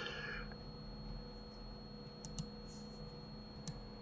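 A few faint computer-mouse clicks: two in quick succession a little past halfway, then one more near the end, over a faint steady electrical hum.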